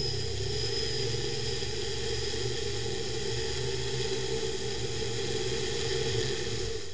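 Electric motors and propellers of a DIY octocopter running with a steady multi-tone whir, heard close up from a camera on its frame as it comes down to land. The sound drops suddenly near the end.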